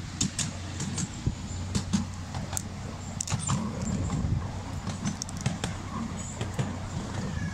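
Miniature railway train running along its track: a steady low rumble with many irregular sharp clicks and rattles from the wheels and carriages.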